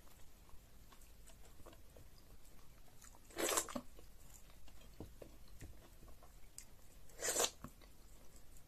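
Close-miked mouth sounds of a person eating egusi soup by hand: soft chewing and small wet clicks, with two louder slurping sucks, one about a third of the way in and one near the end.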